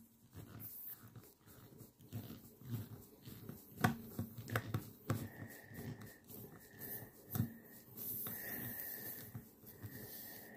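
A screw being turned out of a car tyre's tread with a screwdriver, with scattered clicks and knocks, a few sharper ones about four and seven seconds in. From about halfway a thin whistle comes and goes and a hiss grows: air starting to escape through the puncture as the screw comes loose.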